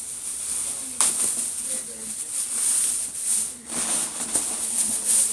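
Plastic bag wrapping crinkling and rustling as a latex mask is pulled out of it. The rustling gets loud suddenly about a second in and goes on in uneven bursts.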